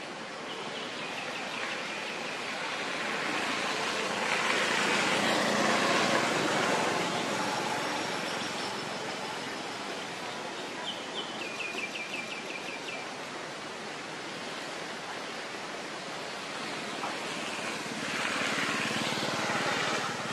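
Outdoor ambience: a rushing noise that swells a few seconds in and again near the end, with a short rapid run of high chirps around the middle.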